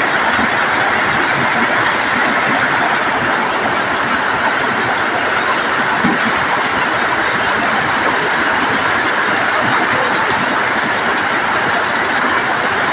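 Steady rain falling on corrugated metal roofs: a dense, even hiss that holds level throughout.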